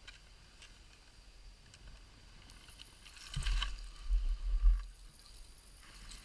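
Faint outdoor background, then a cluster of deep muffled thumps with some rustling about three to five seconds in: buffeting and handling noise on the camera microphone as the camera moves. No engine is running.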